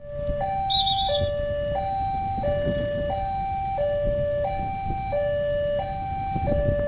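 Railway level-crossing warning alarm: an electronic two-tone signal alternating steadily between a higher and a lower note, each held about two-thirds of a second. It warns that a train is approaching the crossing.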